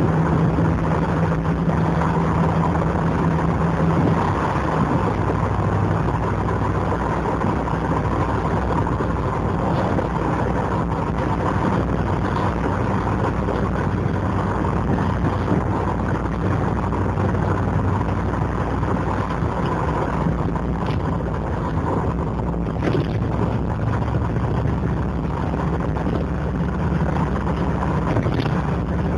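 TVR Wedge's Rover V8 engine running on the move, heard from inside the car: a steady low burble whose pitch shifts a few times with the road speed.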